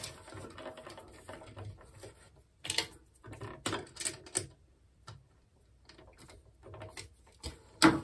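Scattered light clicks, ticks and scrapes of stiff copper house wiring being worked onto the terminals of a plastic GFCI outlet, with a cluster of sharp ticks a few seconds in and another near the end.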